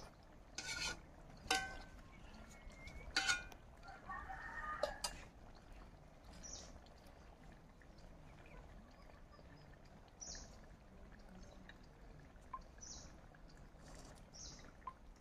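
A few faint clinks of a steel ladle against a cooking pot and plates in the first five seconds, a couple of them ringing briefly, as the pot is handled on a clay stove. Faint bird chirps come now and then through the rest of the stretch.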